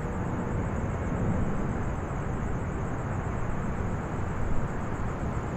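Crickets chirping in a continuous high, rapidly pulsing trill, over a steady low rumble of outdoor background noise.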